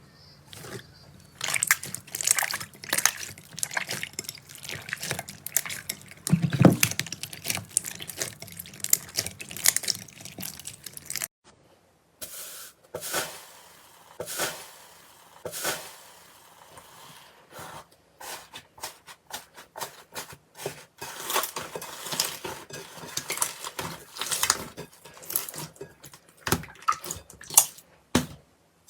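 Slime being handled by hand: a dense run of wet, sticky clicks and pops, broken by a short pause about eleven seconds in.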